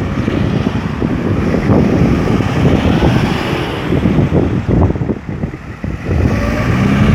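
Road traffic going by: cars passing with engine and tyre noise, easing off briefly about five to six seconds in before picking up again.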